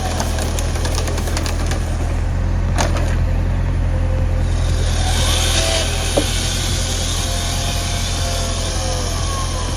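A heavy engine running steadily, with faint whines and two sharp knocks, about three and six seconds in.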